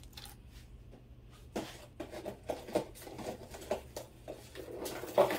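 Costume jewelry handled in a pile: beads, chains and bangles clicking and rattling against each other in irregular small clicks, with a louder clatter near the end.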